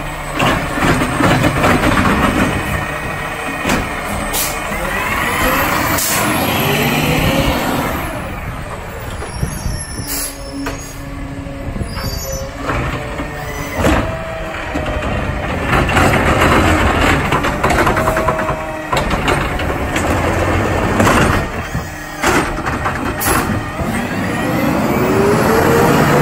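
Peterbilt 520 garbage truck running while its McNeilus ZR automated side-loader arm grabs, lifts, dumps and sets back down a wheeled trash cart: hydraulic whine rising and falling, knocks of the cart and lid, and air-brake hisses as the truck moves off.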